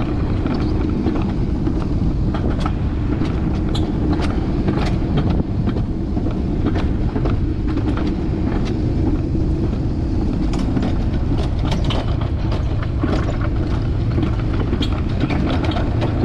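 Alpine coaster sled rolling along its steel tube track: a loud, steady rumble with frequent rattling clicks from the wheels on the rails.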